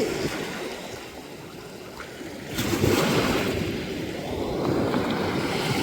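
Sea waves washing onto the beach, with a wave surging in about halfway through.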